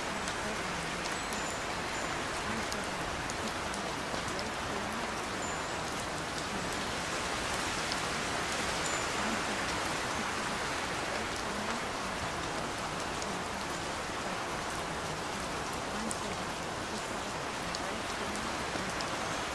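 Steady rain falling, an even unbroken hiss with scattered small drop ticks.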